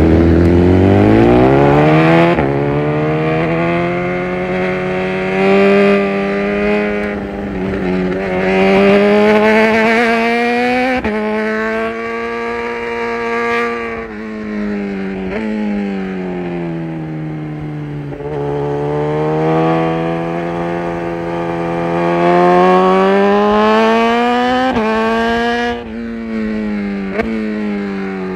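A 2018 BMW S1000RR's inline-four engine, heard from the rider's seat, revving up and easing off in repeated long sweeps as the bike accelerates and slows. A few sharp clicks cut through the note.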